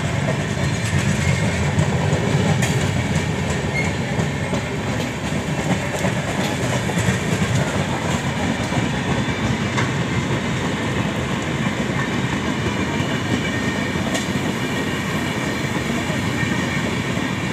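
Two express trains of LHB passenger coaches passing each other close by: a steady, loud rumble of wheels on rails with occasional sharp clicks.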